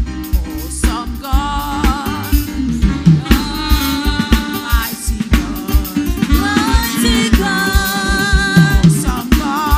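Live gospel worship music: a singer's voice over a band with drum kit and bass keeping a steady beat.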